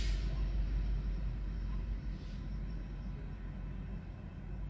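Low rumble of a diesel locomotive moving away from the grade crossing, fading over the few seconds, with a brief hiss at the very start.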